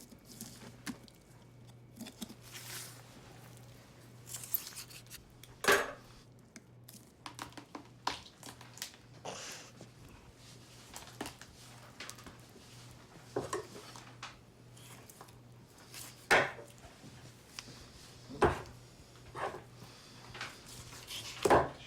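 Kitchen work: irregular chopping knocks, scrapes and clinks of knives and dishes, over a faint steady low hum.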